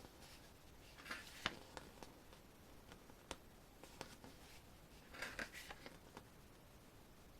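Faint handling noises of a CD being taken out of its case: scattered light clicks and short rustles, busiest about a second in and again about five seconds in.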